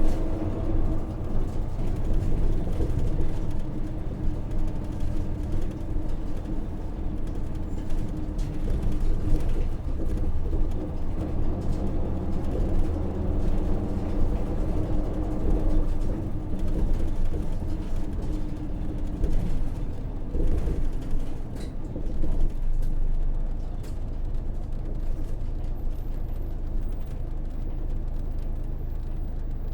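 Hino PJ-KV234L1 city bus with its 6HK1 diesel engine running under way, heard from inside the cabin, the engine note shifting with speed and gear. About 23 seconds in it settles to a lower, steadier drone.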